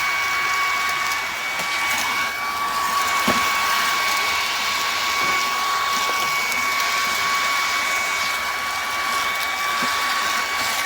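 BISSELL PowerClean cordless stick vacuum running steadily: a motor whine at one pitch over a rush of air, with a few light knocks from the head on the floor.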